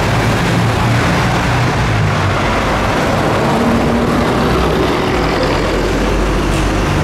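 Street traffic with a vehicle engine running close by: a low engine note that shifts in pitch over a steady wash of road noise.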